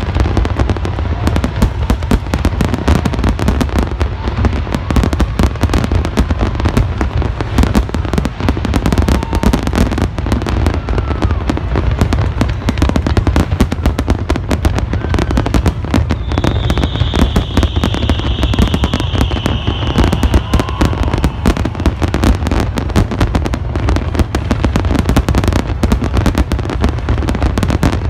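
Large aerial fireworks display going off nonstop: a dense run of rapid bangs and crackles over a continuous low booming rumble, with a high hiss for a few seconds past the middle.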